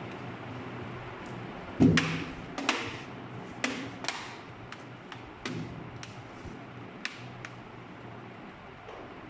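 Plastic laptop case being pressed down and handled on a desk: a loud knock about two seconds in, then a series of sharper clicks and taps, fading out in the second half.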